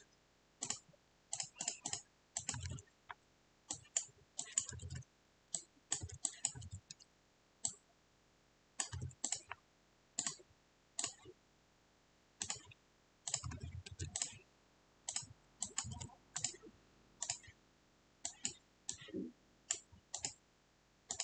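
Computer keyboard typing and mouse clicks: faint, irregular clicks, some in quick runs, with a few soft low thumps among them.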